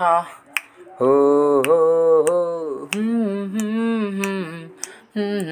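A singer's voice holding long wordless 'ho' notes that step up and down in pitch. A sharp click sounds on each beat, about every two-thirds of a second.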